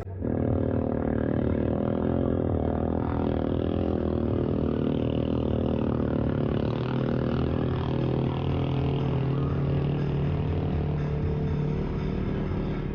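Off-road vehicle engine running steadily at a nearly constant pitch, with one low tone strengthening a little past the middle.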